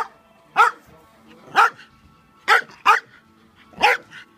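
Small terrier barking in short, sharp barks, about one a second, with two in quick succession near the middle.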